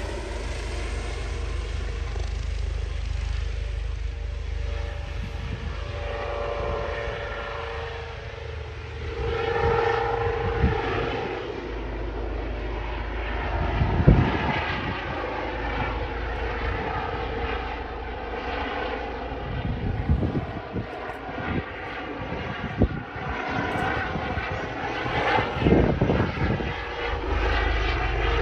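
Airbus EC135 air-ambulance helicopter running at takeoff power: twin-turbine whine and rotor noise with shifting tones. Rotor downwash buffets the microphone with irregular sharp thumps, several in the second half.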